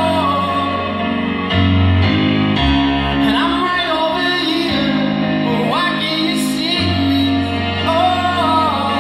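A male singer performing a slow ballad live, his voice gliding through long high notes over sustained keyboard chords.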